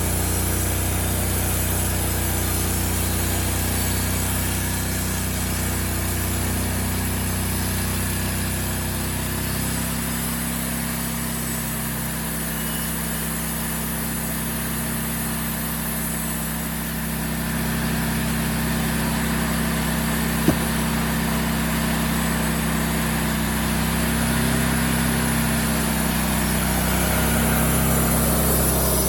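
Gas engine of a Wood-Mizer portable band sawmill running steadily under load, its note shifting about a third of the way in and again past the middle as the blade works through a very hard hedge apple log. A single short click a little past the middle.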